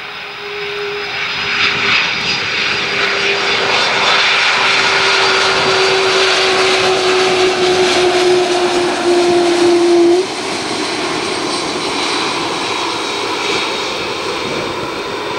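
Boeing 767-300ER freighter's twin turbofan engines whining at low power as the jet rolls past on the runway. A steady engine tone slowly falls in pitch over a broad roar that grows louder in the first seconds, and the level drops suddenly about ten seconds in.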